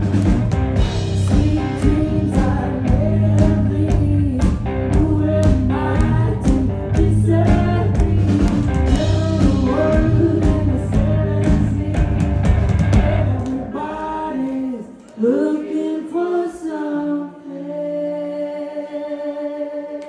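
Live band playing: a woman singing over electric guitar and a drum kit. About two-thirds of the way through, the drums and low end stop, leaving a few held guitar and voice notes that ring out as the song closes.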